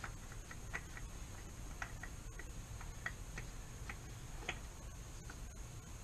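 Faint, irregular light ticks, about a dozen, as a new, oil-filled oil filter is spun onto a motorcycle engine by hand over a drain pan.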